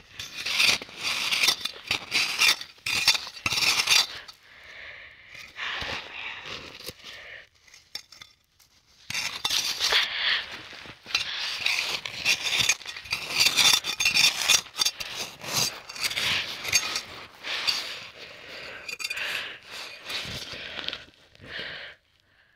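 Snow being scraped and crunched close to the microphone in quick, irregular strokes, in two long bouts broken by a short pause about eight seconds in.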